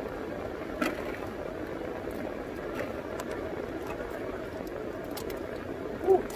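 Steady low hum inside a car's cabin with the engine running, with a sharp click about a second in and a short squeak near the end.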